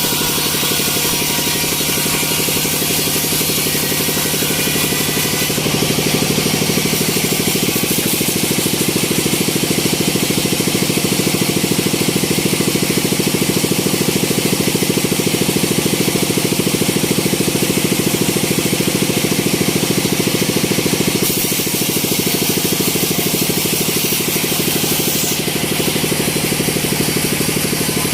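Engine-driven sawmill machinery running steadily with a fast, even pulsing. The sound swells a little for most of the middle, then eases back near the end.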